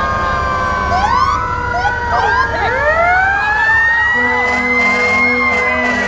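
Several emergency-vehicle sirens sounding at once: slow rising and falling wails overlapping with faster warbling sweeps, and from about four seconds in a low tone pulsing on and off, over the rumble of the passing vehicles.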